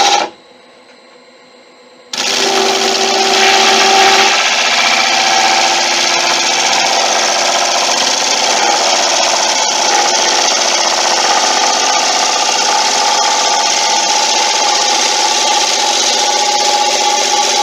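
Bowl gouge cutting the inside of a monkey puzzle bowl spinning on a wood lathe: a loud, steady scraping rush with a few steady tones. The cut stops for about two seconds just after the start, then carries on.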